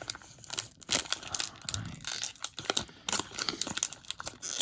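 Foil wrapper of a trading-card pack being torn open and crinkled by hand, an irregular run of crackles and small rips.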